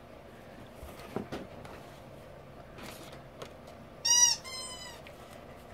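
Rubber sterile gloves being pulled off the hands: faint rustling and light clicks, then about four seconds in a sharp, high-pitched two-part squeak of rubber rubbing on rubber.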